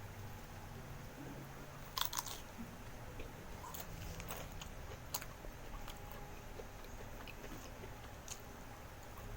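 A person chewing crisp food close to the microphone, with a cluster of sharp crunches about two seconds in and a few single crunches after, over a faint low steady hum.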